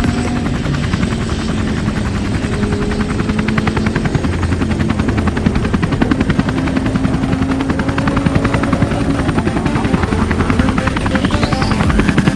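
Helicopter carrying the camera: its rotor blades chop rapidly and evenly over a steady engine hum.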